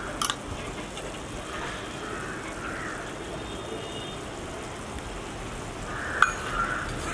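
Tomato sauce and eggs simmering in a large iron pan, a steady bubbling hiss, with a few sharp clicks of a metal slotted spatula against the pan, the loudest near the end.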